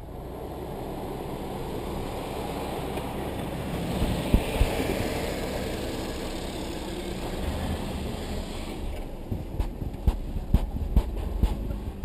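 Off-road 4x4's engine running as it crawls over and past through deep snow, with tyres churning snow. There are a couple of sharp knocks about four seconds in and a quick string of knocks in the last three seconds.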